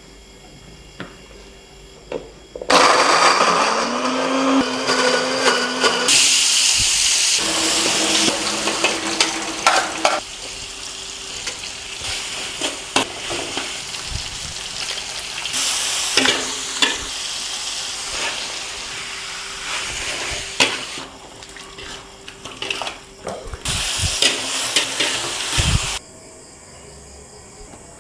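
Food frying and sizzling in a pan, stirred with knocks and scrapes of a utensil, in several short segments that start and stop abruptly, each at a different loudness.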